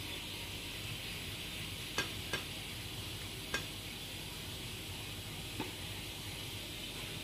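Hand-dredging chicken pieces in bowls of egg wash and flour, with four light clicks of the pieces and fingers knocking against the bowls, over a steady background hiss.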